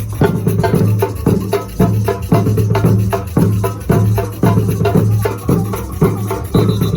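Loud percussion-driven music with a strong, even beat of about two drum strokes a second over a steady bass.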